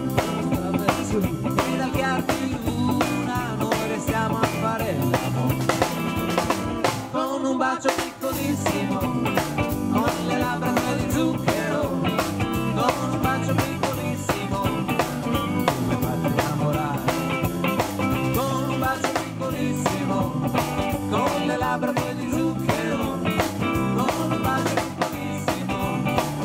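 Live rock band playing: two electric guitars, electric bass and a drum kit, with a short break in the bass and drums about seven seconds in.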